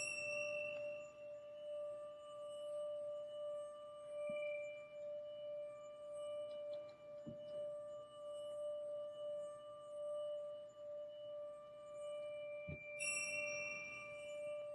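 A long, steady ringing metal tone like a singing bowl, held throughout, with a bright bell-like strike at the start and another about 13 seconds in. A few soft low knocks come between them.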